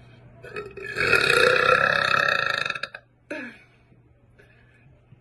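A woman's long, loud burp lasting about two seconds, starting about a second in, followed by a short sound that drops in pitch.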